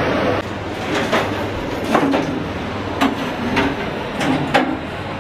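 About six irregular sharp knocks and clanks over a steady low background noise: boots and gear striking a ship's steel fittings as a compartment is cleared.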